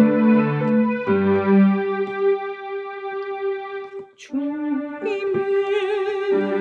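Electronic keyboard playing a slow hymn with sustained chords under a long-held melody line. The music breaks off briefly about four seconds in, then resumes with a held note that wavers with vibrato.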